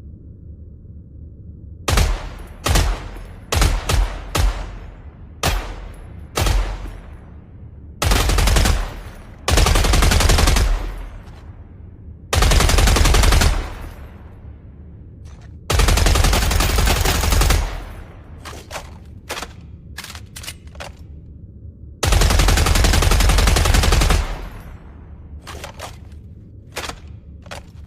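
Machine gun firing in bursts: a string of short bursts, then longer sustained bursts of about two seconds each, then a few brief bursts near the end. Each burst is followed by a short echoing tail, and a steady low hum runs underneath.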